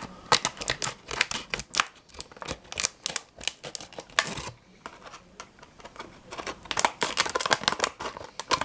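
Diecast toy car's card-backed plastic packaging being cut and pried open: rapid, irregular crackling and clicking of plastic, in two bouts with a short quieter pause in the middle.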